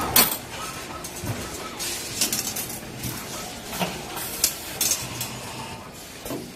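Bent steel wire pieces clinking and rattling against each other as they are handled in a plastic crate. A sharp clink right at the start is the loudest, with more scattered clinks after it.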